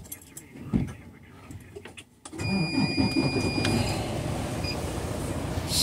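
A truck engine comes on suddenly a little over two seconds in and runs loudly, with a high steady beep lasting about a second and a half just after it starts. A few clicks and a thump come before it.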